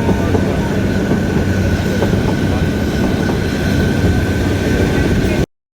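Kalka–Shimla narrow-gauge toy train running on the track: a steady, dense rumble of the coach and wheels, with a thin high squeal held over it. The sound cuts off abruptly near the end.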